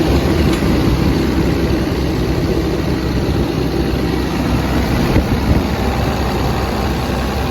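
Cummins diesel engine of an XCMG XE210CU hydraulic excavator idling steadily.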